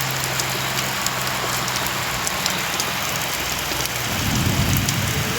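Heavy rain falling steadily, with the sharp ticks of individual drops hitting surfaces. A low hum fades out in the first half, and a low rumble rises about four seconds in.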